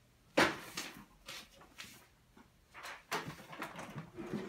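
Handling noise: a sharp knock about half a second in, then lighter knocks and rustles as hands take hold of an office copier's plastic body.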